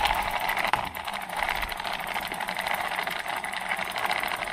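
Dirty mountain bike chain running through a handheld brush-type chain-cleaning machine as the cranks are turned, a fast, steady rattling clatter.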